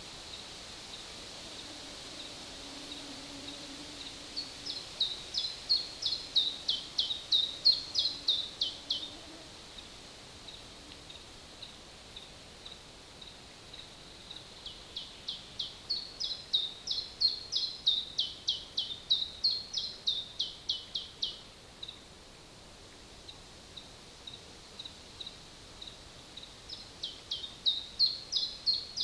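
A songbird singing: three long songs of rapid repeated notes, about four a second, that swell in loudness. They come a little after four seconds in, around the middle and near the end, with soft single notes between them over a steady forest hiss.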